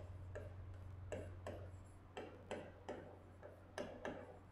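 Stylus tapping on the glass of an interactive display panel while handwriting: faint, irregular clicks, two or three a second, over a steady low hum.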